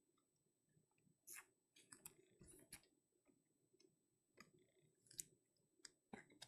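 Near silence with a few faint clicks and short rustles of trading cards being handled, a small cluster of them in the first half and a few more near the end.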